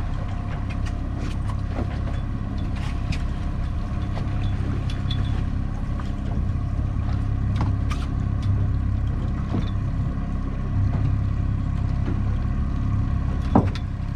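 Boat's outboard motor running steadily, a continuous low drone, with scattered light knocks and clatters as the landing net and its handle are moved about, the sharpest knock near the end.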